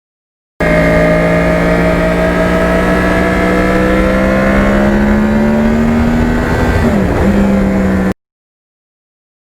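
Yamaha R1 crossplane inline-four motorcycle engine running under load, its pitch rising slowly as it accelerates, with a brief dip in pitch about seven seconds in before it steadies at a slightly lower note. The sound starts and stops abruptly.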